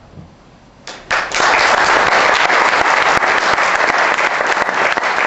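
Audience applauding: a brief lull, then many hands clapping start about a second in and keep up a steady loud level.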